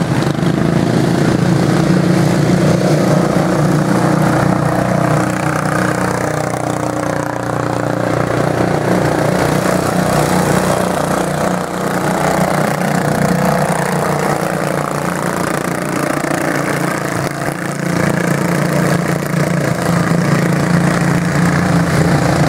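Racing lawn tractors' small engines running hard as a pack laps a dirt oval. The engine note rises and falls as the mowers pass and throttle through the turns.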